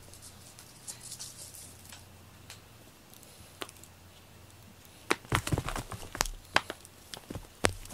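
A cat pouncing at a cat-teaser toy: a quick run of sharp taps and scrabbling clicks from paws and toy against the floor, starting about five seconds in, after a faint rustle about a second in.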